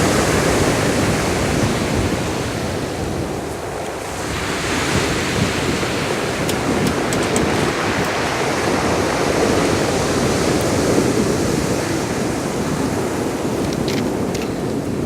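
Sea surf washing ashore in a continuous rush, easing briefly and then swelling again about four seconds in as another wave comes in, with wind on the microphone.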